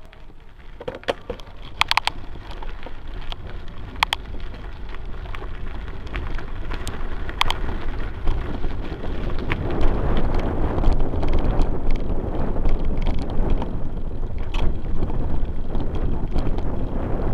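Bicycle rolling downhill over a dirt path and then grass: tyre rolling noise with scattered clicks and rattles, and wind on the microphone that builds up as the bike picks up speed, louder from about halfway in.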